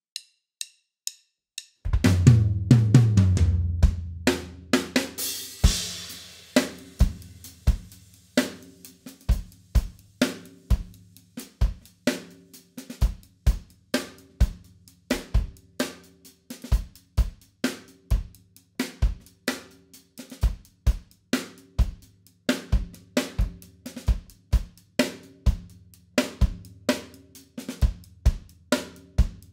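Acoustic drum kit played. A few light clicks count in, then loud drum hits with a long low ring and a cymbal crash, settling into a steady groove of bass drum, snare and hi-hat. Under the beat there is a lingering low drum tone, and the drummer finds the bass drum sounds weird.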